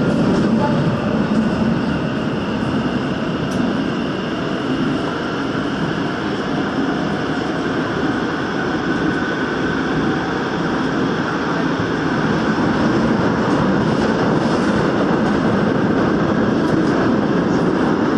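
Daegu Metro Line 2 subway train running at speed through a tunnel: a steady rumble of wheels on rail and running gear, easing a little in the middle and building back up near the end.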